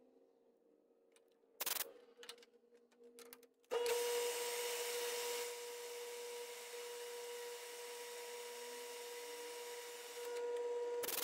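A few clicks, then a metal lathe comes in suddenly and runs with a steady whine over a hiss, turning a small brass crosshead part.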